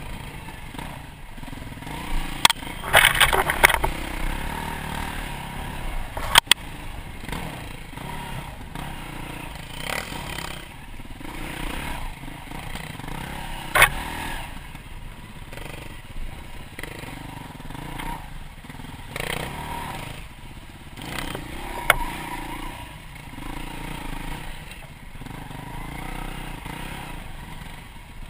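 Dirt bike engine running steadily at low speed on a rough track, with the bike rattling and several sharp knocks over bumps. The loudest knocks come in a cluster a few seconds in, with single ones later.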